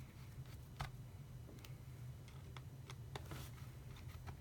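Faint, irregular clicks and ticks of a small screwdriver tightening the display bracket screws on a MacBook Pro, over a steady low hum.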